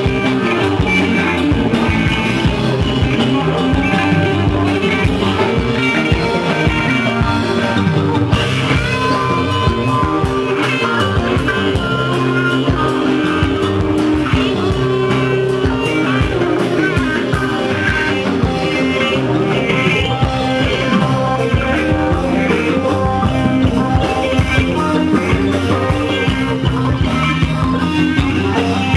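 Live rock jam played loud on electric guitars over a steady drum beat, without vocals.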